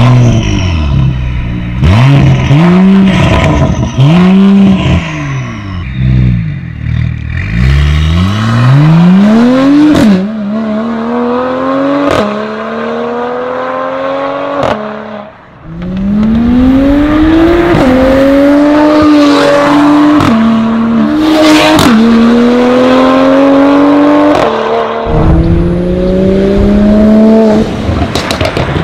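Mercedes-AMG E53 Coupe's turbocharged 3.0-litre inline-six, breathing through a Fi Exhaust valvetronic catback with catless downpipes. First four quick revs while standing, then two hard accelerations through the gears. Each upshift drops the pitch, and several are marked by a sharp crack.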